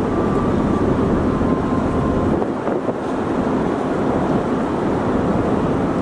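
Steady noise of the large car ferry Tsukushi under way, heard from its top deck: the ship's engine and ventilation drone mixed with wind on the microphone.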